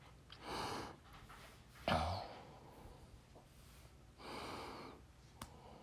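Faint breathing close to the microphone: two soft exhales, one just after the start and one past the middle. A soft knock about two seconds in and a small click near the end come from handling the foam pop dots.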